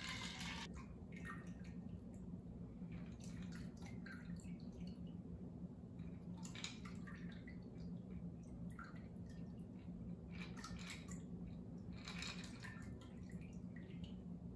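Cosmopolitan pouring from a cocktail shaker into a martini glass, then trickling and dripping in short, faint splashes as the last of it is shaken out.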